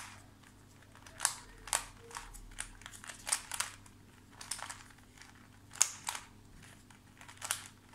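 Plastic Limcube skewb–2x2x2 hybrid twisty puzzle being turned by hand: about a dozen short, irregular clicks and clacks as its layers rotate and snap into place.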